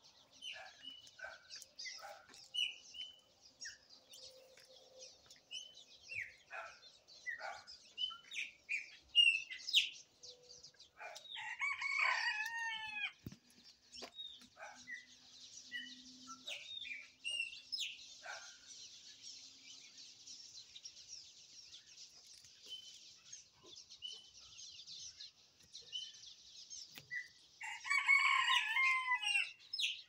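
A rooster crowing twice, about eleven seconds in and again near the end, amid many short chirps of small birds and a steady high-pitched hiss.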